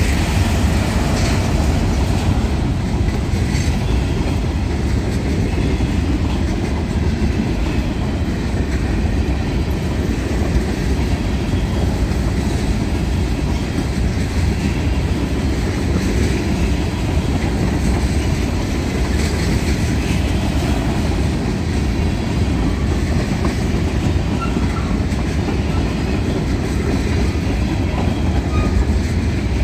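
Empty grain hopper cars of a freight train rolling steadily past, the wheels rumbling and clacking along the rails.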